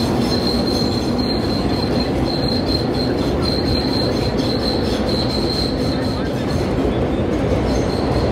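Vintage IND R1-9 subway car running through a tunnel: a steady rumble of the car and track with a thin, high-pitched wheel squeal running over it, breaking off briefly a few times.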